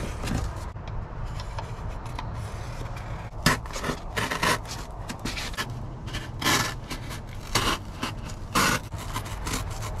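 Black Sharpie marker scratching along cardboard while a relay panel is traced onto a cardboard template, with the cardboard rubbing and shifting. A few short scraping strokes come from about three and a half seconds in.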